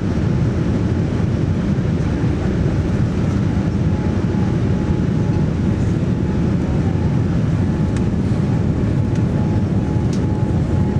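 Steady roar of engine and airflow noise inside the cabin of a Boeing 787-9 airliner, with a faint steady whine appearing about four seconds in.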